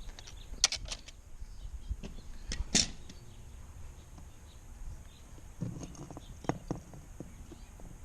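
Scattered clicks and knocks of plastic pool plumbing fittings and tools being handled, with sharper clicks about a second and three seconds in and a small cluster of knocks around six seconds.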